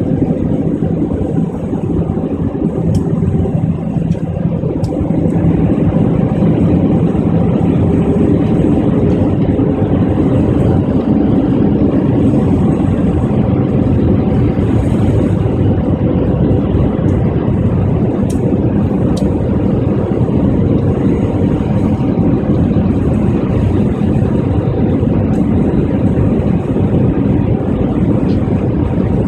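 Steady cabin noise of a jet airliner descending, heard from inside the cabin: the drone of the engines and air rushing past the fuselage, with a faint steady hum running through it.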